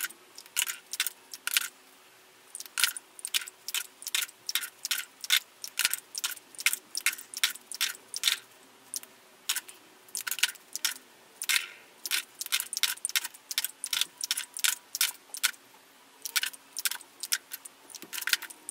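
Plastic lipstick tubes clicking and clattering as they are pulled out of a plastic grid organiser and dropped onto a pile: a quick run of sharp clicks, several a second, with a few brief pauses.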